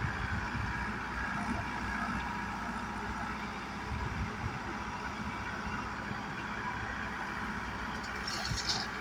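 Diesel engines of a JCB backhoe loader and a New Holland tractor running steadily while the backhoe digs and loads earth, with a brief higher hiss near the end as a bucketful of soil pours into the tractor's trailer.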